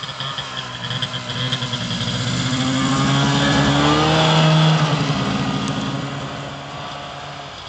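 1989 Arctic Cat Jag 340 snowmobile's two-stroke engine driving past at close range: it grows louder as it approaches, passes about four and a half seconds in with a drop in pitch, then fades as it pulls away.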